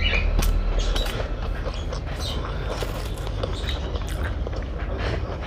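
A person eating a meal of rice and curry: scattered soft clicks and wet smacks of chewing and handling food, over a steady low hum.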